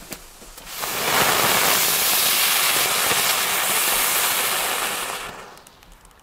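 Two ground-spinner fireworks burning side by side, giving a loud, steady hiss of spraying sparks that starts about a second in and dies away near the end. The Brummer does not take off spinning, so it only hisses, with no hum.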